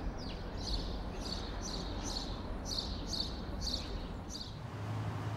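A small bird calling in a quick series of short, high chirps, about two a second, that stop about four and a half seconds in, over a steady low rumble.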